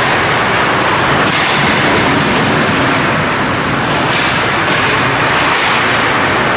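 Steady, loud ice rink noise during hockey play: a continuous rushing haze with a few faint scrapes of skates on the ice.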